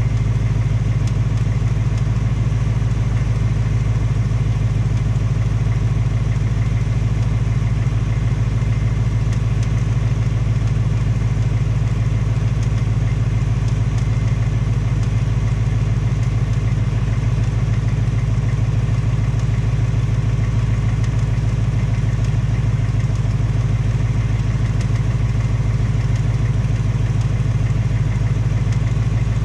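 2018 Mustang GT's third-generation Coyote 5.0 V8 idling steadily with a fast tapping/knocking from the engine. The owner suspects it of being the Coyote "BBQ tick" or piston slap in the engine.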